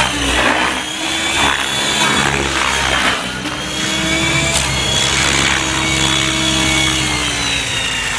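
Gaui X7 radio-controlled helicopter flying at low head speed, its rotor and drive giving a steady whine whose pitch slowly rises and falls as it manoeuvres.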